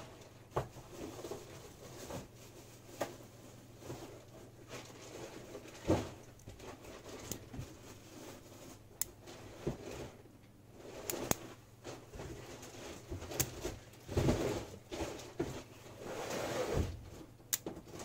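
Magnetic rod-and-ball structure of steel rods and steel balls being handled: scattered light metallic clicks at irregular intervals, with a few duller bumps and soft rubbing of hands on the structure.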